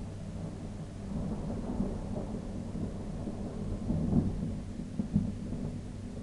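Rolling thunder, a low rumble that builds from about a second in and is loudest around four seconds, with a sharp crack just after five seconds.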